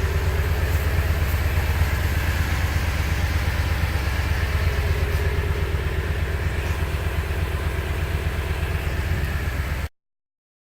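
Toyota Sequoia engine idling steadily, heard through its exhaust with the replacement Walker Quiet Flow muffler fitted. The sound cuts off suddenly near the end.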